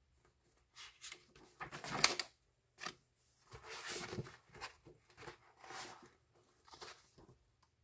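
A series of short rustling and handling noises in a small room, a few in a row with gaps between; the loudest comes about two seconds in.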